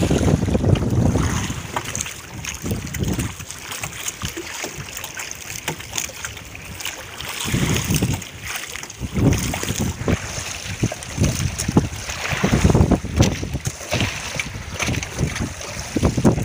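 Wind buffeting the microphone in irregular gusts over the wash of sea water.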